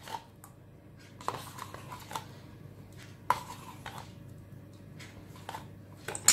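A metal spoon scooping sour cream from a plastic tub and knocking against the tub and a stainless steel bowl: scattered light clicks and taps, with one sharp clink at the very end.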